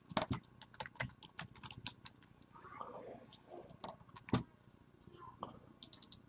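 Typing on a low-profile computer keyboard: quick, irregular key clicks, with one louder key strike about four seconds in.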